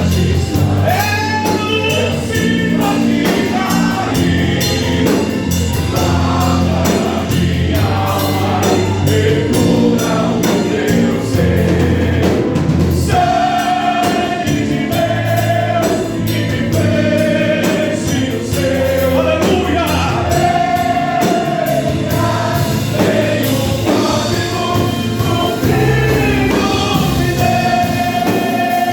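Gospel music: a group of voices singing together over a band with a steady bass line.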